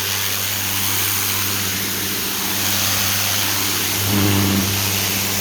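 Pressure washer running steadily: a constant motor hum under the hiss of the high-pressure water jet on slate pavers.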